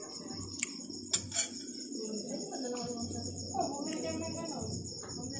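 Crickets chirping steadily in a continuous pulsing high-pitched chorus, with a few light clicks of a spoon against a ceramic plate.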